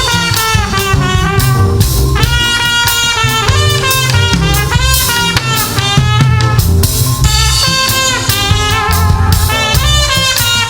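Live gospel band music: a drum kit keeps a steady beat under a melody of held notes that step up and down.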